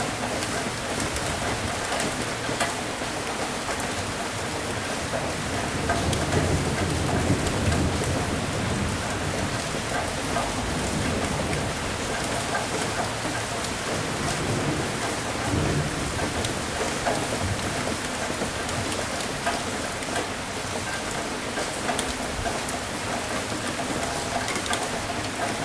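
Steady rain pattering down, with low rolling thunder that swells several times, loudest about a third of the way through.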